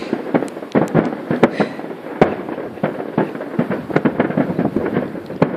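Aerial firework shells bursting in quick succession, a dense run of bangs and crackles, with one heavier boom a little past two seconds in.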